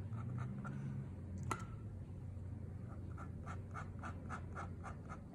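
Ink drawing strokes scratching on paper: quick, short hatching strokes, about four a second, in the second half. A single sharp click comes about a second and a half in.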